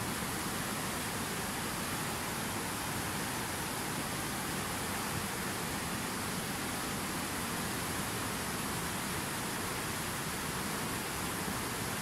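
Fast mountain river rushing over rocks, a steady, unchanging hiss of whitewater.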